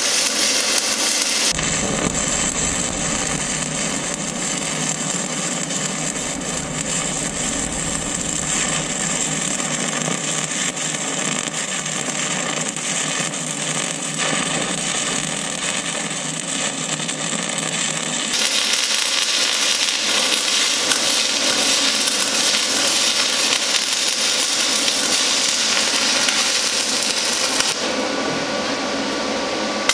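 Shielded metal arc (stick) welding with a 1/8 inch 7018 electrode: the arc crackles and hisses steadily as a bead is laid on a steel bucket, run at a hot amperage setting. The tone of the crackle shifts a couple of times along the way.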